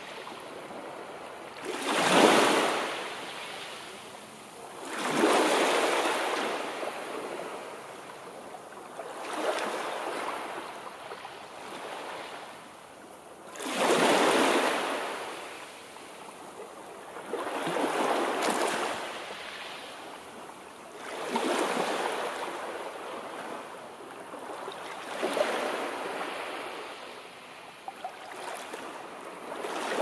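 Sea waves breaking and washing up a beach, about one every three to four seconds. Each one swells into a rush of surf and then fades back.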